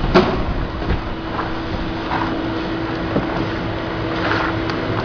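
Shrimp color sorting machine running with a steady mechanical hum, its vibratory feeder on. A sharp knock comes right at the start as a plastic crate is pulled out, with a few faint ticks later.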